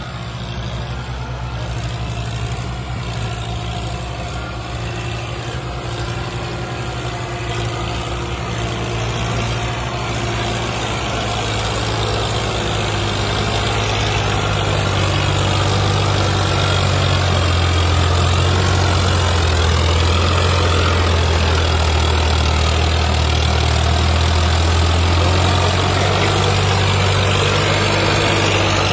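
Farmtrac 60 PowerMaxx tractor's diesel engine working at full power under a heavy load as it hauls a fully loaded trolley, a steady drone that grows louder over the second half as the tractor comes closer.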